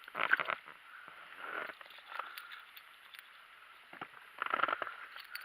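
A hooked fish being landed in a boat: short bursts of splashing and rustling with a few sharp knocks.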